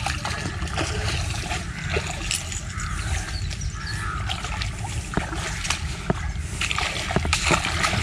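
Feet wading through shallow river water, with irregular splashes and sloshes that grow busier near the end.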